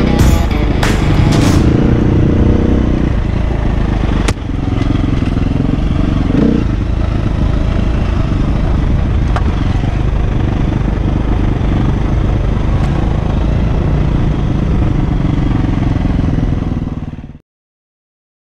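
KTM 350 dirt bike's single-cylinder four-stroke engine heard from the rider's helmet on singletrack trail, pulling hard for the first few seconds, then running at lower, steadier revs. There is a sharp knock about four seconds in. The sound cuts off suddenly near the end.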